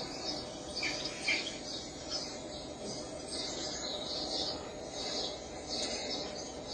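Repeated short high chirps and squeaks, several a second, playing through a television speaker from a video of mice made for cats.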